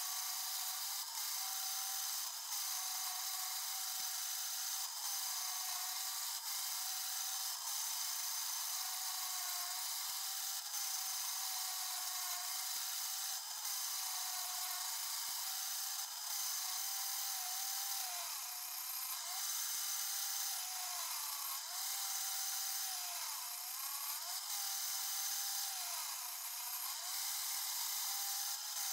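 Quorn tool and cutter grinder's spindle and wheel running with a steady whine and the hiss of grinding, as the wheel grinds primary back relief into the teeth of an Acme tap. The whine sags briefly in pitch every second or two.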